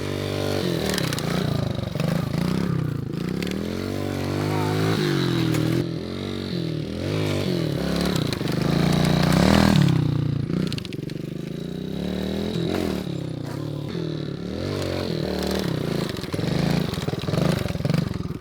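Dirt bike engine riding on a track, revving up and falling back again and again as the rider works the throttle and shifts. It is loudest about nine or ten seconds in.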